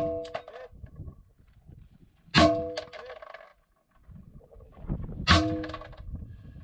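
AR-15 rifle shots, three of them about three seconds apart, each followed by a brief metallic ring.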